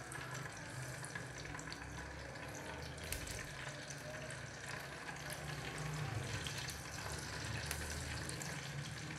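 Hot cooking oil in a pot sizzling and crackling steadily, with a breadcrumb-coated cheese cutlet frying in it once it has gone into the oil.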